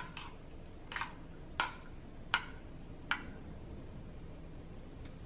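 A metal spoon clinking against a glass bowl as butter sauce is scooped out: five short clicks about one every three-quarters of a second.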